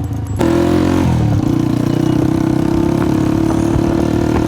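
Honda CG 125's single-cylinder four-stroke engine running through a burst silencer: about half a second in the throttle opens and it gets suddenly louder, the revs climb in steps, then hold steady and loud.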